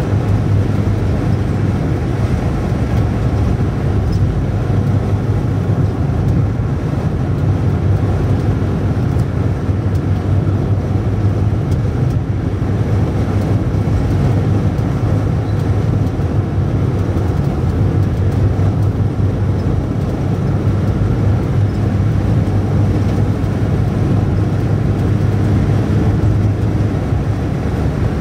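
Car driving steadily at speed, a constant low drone of engine and road noise with a strong low hum throughout.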